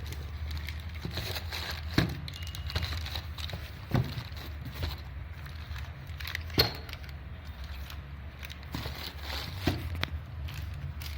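Cable jointing kit parts being handled and packed back into their box: rustling and crinkling of packaging, with sharp knocks about two, four and six and a half seconds in. A steady low hum runs underneath.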